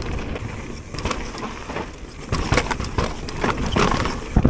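Mountain bike descending a rocky trail: tyres rolling over loose stones and rock, with irregular knocks and rattles from the bike over the bumps, over a steady low rumble.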